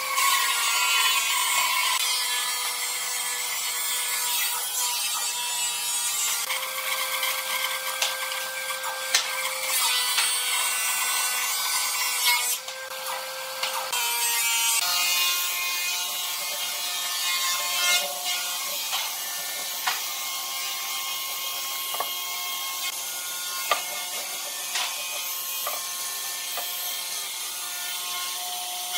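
An electric power tool working wood: a steady motor whine that steps up and down in pitch a few times with the load, over a rough hiss of cutting or sanding. Scattered clicks run through it, and the sound dips briefly about halfway through.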